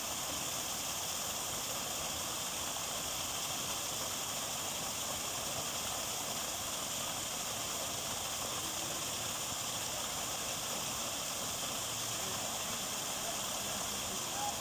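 Small waterfall on a river: steady rushing and splashing of falling water, an even hiss with no breaks.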